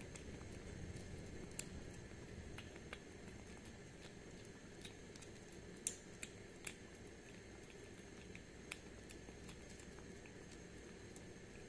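A kitten eating wet cat food from a saucer: faint wet chewing and smacking, with scattered small clicks, the sharpest about six seconds in.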